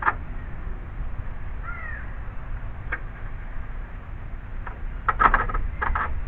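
Crow cawing: a caw at the start, another about three seconds in, and a quick run of several caws near the end.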